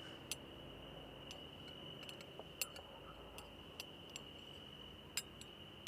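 Faint night ambience: a steady high trill of crickets, with light clinks of cutlery on plates now and then.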